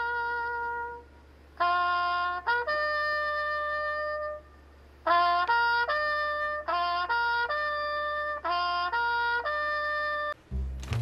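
Background music: a melody of held notes in short phrases, broken by two brief pauses, over a steady low bass tone.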